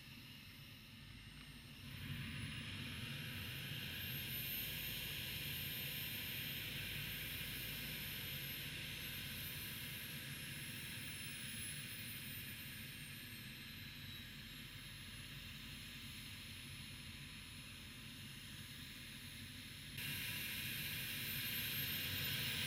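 Radio-controlled Viper Jet model's small jet turbine coming to life about two seconds in: a steady hiss with a thin, high whine that rises and then slowly settles at idle. It gets louder again near the end as the model begins to taxi.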